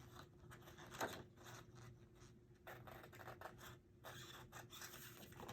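Scissors cutting light photo-paper cardstock, faint snips and paper scraping, with a sharper click about a second in.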